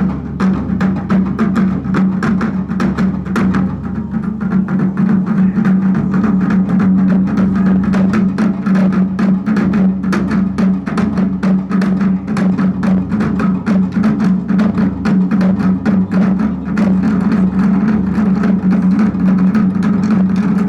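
Japanese taiko drums played in a fast, dense rhythm of strikes, over a steady low drone.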